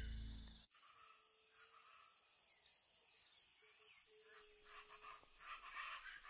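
Music cuts off under a second in, leaving faint natural ambience with a steady high insect buzz like crickets, near silence overall.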